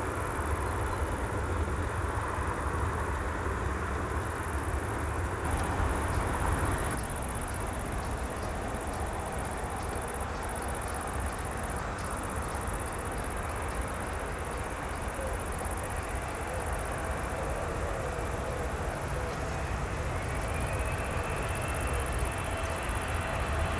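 Boeing 777-300 jet airliner on final approach, heard from a distance: a steady low engine rumble with a broad hiss, and a faint whine rising in pitch near the end as the jet draws closer.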